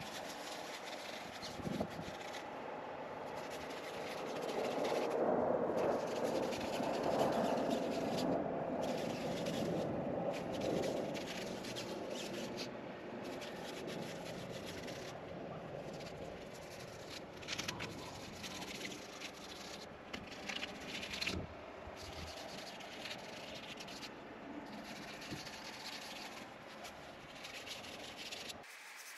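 Hands rubbing along a nylon tent's seams, the fabric rustling and scraping steadily, as DIY seam sealer is worked into the peeling seams. Louder for several seconds early in the first half, then quieter with a few sharper scrapes.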